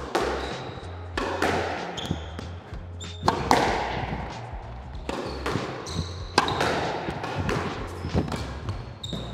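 Squash rally: the ball cracking off rackets and the court walls about once a second, each hit ringing in the court's echo, with shoes squeaking on the floor between shots.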